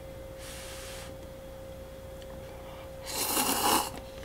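A person slurping instant noodles from a Cup Noodle cup: a short soft hiss about half a second in, then one loud, noisy slurp lasting about a second from about three seconds in. A faint steady hum runs underneath.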